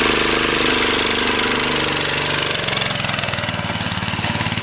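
Small gas engine of a ride-on vehicle running, at a higher speed with a higher tone for the first half, then settling about halfway through to a lower, evenly pulsing idle.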